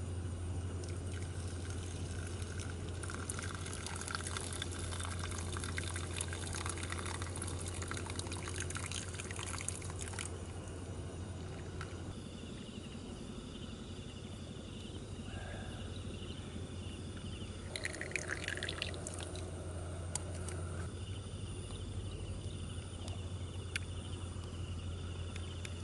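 Water poured from a steel pot into a cloth pour-over coffee filter over a wooden cup: a trickling pour that stops about ten seconds in. A steady low hum runs underneath, and thin steady high tones follow the pour.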